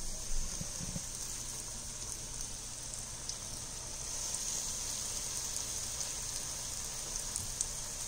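Breaded cod pieces frying in hot oil in a skillet: a steady, rain-like sizzling hiss. A couple of soft low knocks come about half a second in.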